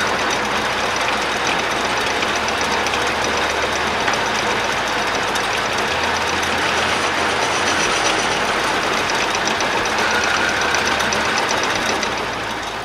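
Metal lathe switched on and running, with its three-jaw chuck and the bar stock spinning. It runs steadily and then winds down near the end as it is switched off.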